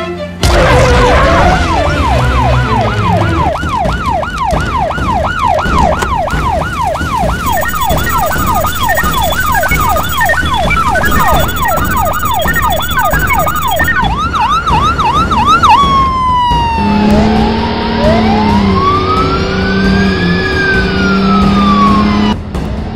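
Cartoon police-car siren in a rapid yelp, sweeping up and down several times a second. About sixteen seconds in it drops into a slower rising-and-falling wail, with a lower tone breaking in and out underneath.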